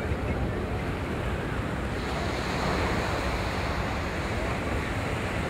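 Small surf waves washing onto a sandy beach, with wind buffeting the microphone; the wash swells a little a couple of seconds in.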